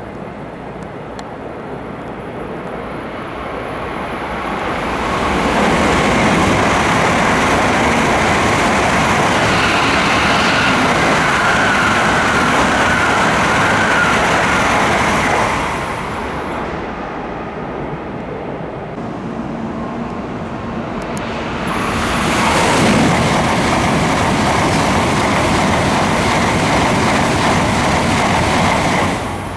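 N700-series Tokaido Shinkansen trains running through a station at speed: a rush of wheel and air noise swells over about five seconds and stays loud for about ten seconds, then eases. About seven seconds later a second loud pass swells and holds until it cuts off at the end.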